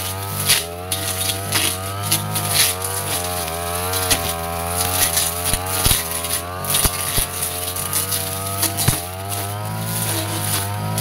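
Backpack brush cutter running at cutting speed, its engine pitch wavering up and down as the blade bites into ferns and shrubs, with several sharp snaps of the blade striking stems.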